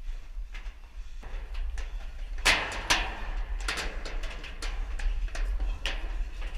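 Irregular knocks and scuffs of shoes and hands against a corrugated metal container and scaffold poles while climbing over it, the loudest knocks about two and a half seconds in, over a steady low rumble.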